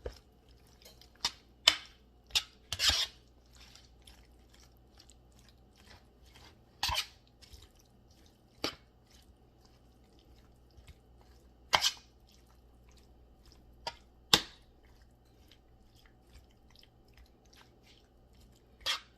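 A utensil clinking and scraping against a casserole dish while stirring a thick, saucy mixture of pasta, chicken and vegetables: irregular sharp clicks a few seconds apart, with faint wet stirring between.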